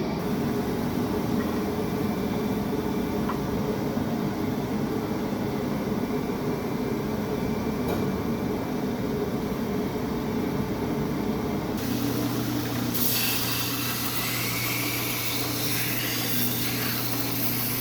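Steady running noise of workshop machinery during knife making. About twelve seconds in it changes abruptly to a steady low motor hum with a strong high hiss laid over it.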